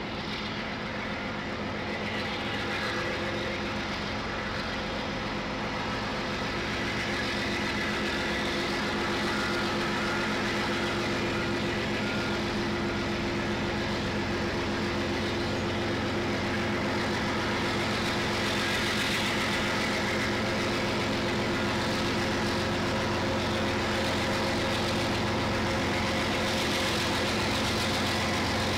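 Diesel freight locomotives approaching, their engines running steadily and growing gradually louder.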